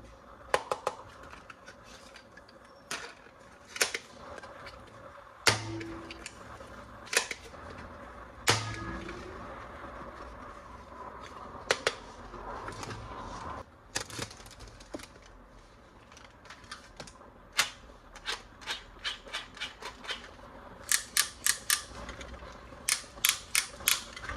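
Sharp plastic clicks and snaps from toys being handled and unboxed, scattered at first, then quick runs of several clicks in a row near the end.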